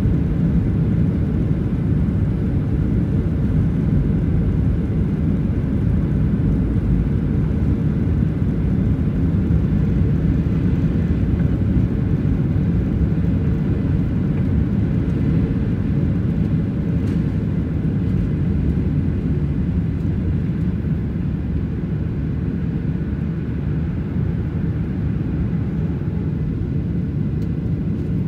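Cabin noise of a Boeing 737-700 on its takeoff roll: the CFM56-7B engines run at takeoff thrust, a loud steady rumble. It eases slightly near the end as the aircraft lifts off.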